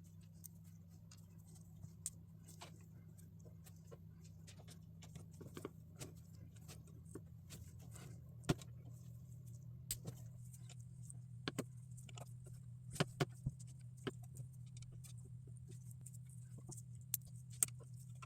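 Plastic LEGO pieces being handled and snapped together: faint, irregular small clicks, a few louder ones, over a steady low hum.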